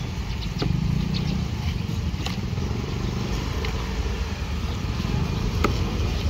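A steady low motor rumble, like an engine running, with a few sharp knocks over it.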